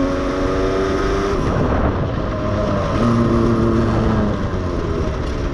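Aprilia 50cc two-stroke moped engine running under way on its quiet stock exhaust, with wind rush. The engine holds a steady note, changes pitch between about one and a half and three seconds in, then holds steady again.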